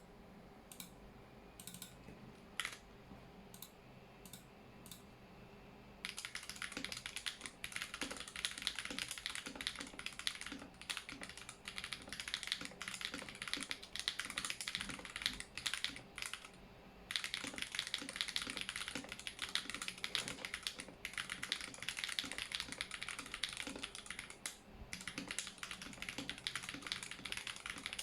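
Mechanical keyboard with stock Holy Panda tactile switches on a brass plate, with case foam, being typed on: a few single key presses, then fast continuous typing from about six seconds in, with a brief pause near the middle.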